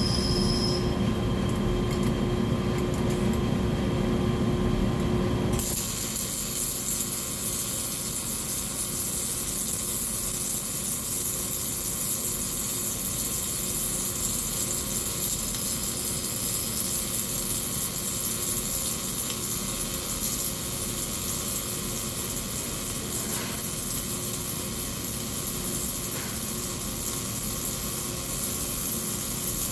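A low steady hum, then a MIG welding arc on mild steel strikes about six seconds in and runs on as a steady high-pitched hiss.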